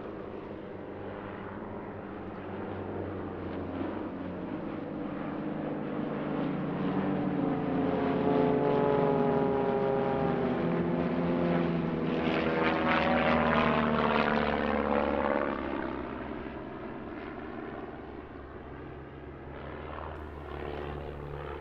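A formation of Van's RV piston-engined propeller aerobatic aircraft flying past. Their engine drone builds to a peak about halfway through, the pitch drops as they go by, and then it fades.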